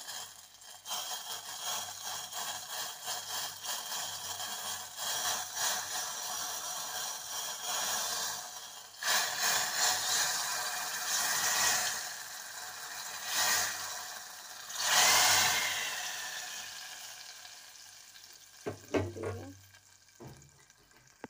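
Garlic tempering (tadka) in hot oil sizzling as the ladle is lowered into a pot of curry. The hiss swells in several loud surges and dies away near the end.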